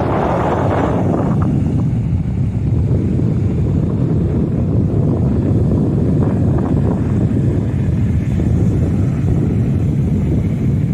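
Rough sea surf with strong wind buffeting the microphone: a wave's wash fades out over the first second or so, then a steady low rumble of surf and wind.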